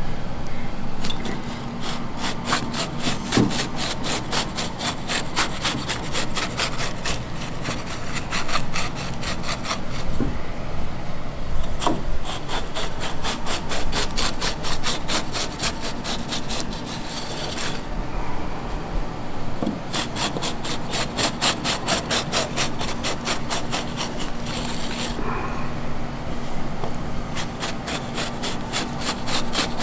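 A multi-blade rolling cutter, a row of circular steel blades on a shaft, rolled back and forth through a slab of set chocolate cookie bark, scoring it into pieces. It makes a rapid run of short scraping clicks, with a few short pauses.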